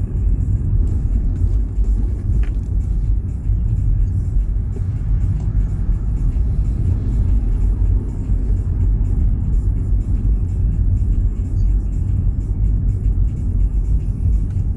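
A car being driven in traffic: a steady low drone of engine and road noise.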